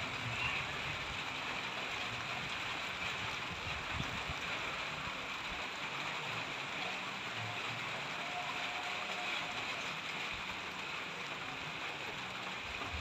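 Steady hiss of rain falling, with a few faint low bumps.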